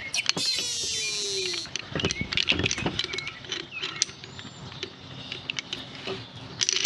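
Metal hand tools and heavy cable being handled at a workbench: a run of irregular clicks and knocks, with a short hissing rush early on and another near the end.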